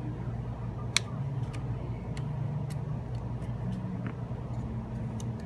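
Small sharp clicks of a spudger prying apart a Samsung Galaxy S4's plastic rear housing as its clips snap loose, with one louder snap about a second in, over a steady low hum.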